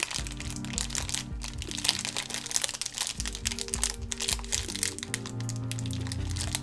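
Background music of slow, held chords, with a plastic parts bag crinkling and rustling as small nuts are picked out of it by hand.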